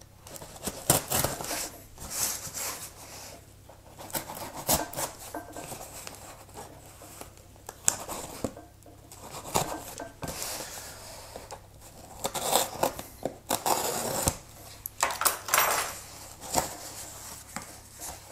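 Swiss Army knife blade cutting through packing tape on a cardboard shipping box, with irregular scraping, rustling and sharp clicks of the tape and cardboard as the flaps are worked open.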